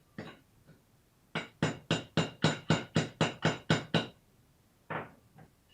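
A hammer striking metal in a rapid, even run of about eleven ringing blows, roughly four a second, knocking the alternator mounting into place so the alternator will fit; one more blow near the end.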